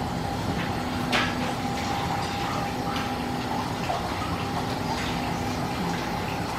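Steady rush of running water with a low steady hum underneath, and a light click about a second in.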